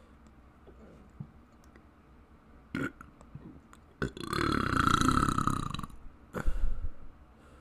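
A person's long, drawn-out burp of about two seconds, starting about four seconds in, followed shortly after by a shorter, sharper sound with a low thump.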